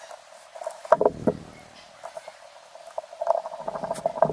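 Small clicks and knocks of hands and a screwdriver working on the parts of a metal fly reel during assembly: a couple of sharp clicks about a second in, then a quick run of small clicks and scrapes near the end.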